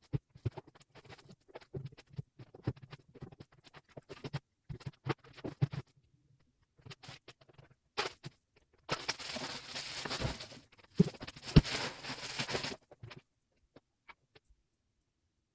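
Sped-up household cleaning noises: a quick run of knocks and clatters of things being handled, then, after a short pause, about four seconds of a steady hiss with a few sharp knocks.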